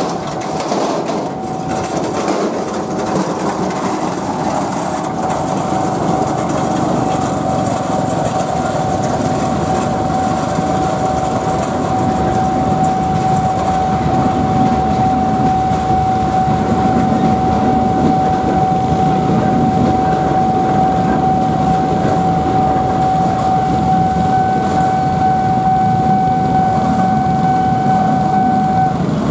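Steady engine noise with a constant high-pitched tone held throughout, which cuts off suddenly near the end; a fainter, higher tone joins it for the last few seconds.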